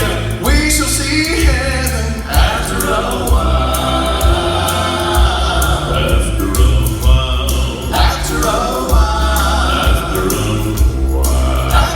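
A vocal quartet singing in harmony over instrumental accompaniment with a steady low bass.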